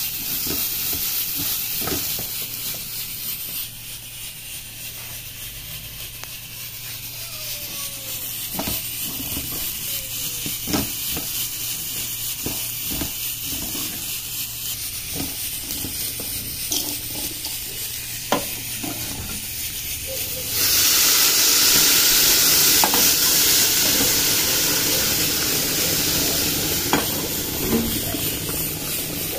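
Rice and diced carrots sizzling in a hot aluminium pot, stirred with a spoon that scrapes and knocks against the pot. About twenty seconds in, water goes into the pot and it gives a sudden loud hiss of steam, which slowly eases off.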